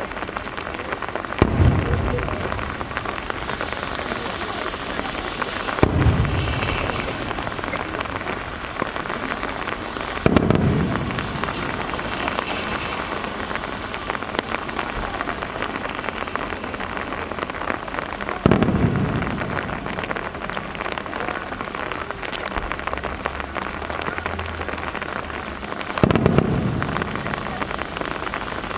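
Aerial firework shells bursting, five deep booms several seconds apart, each trailing off in a rumbling echo over about a second. Steady rain hiss runs underneath.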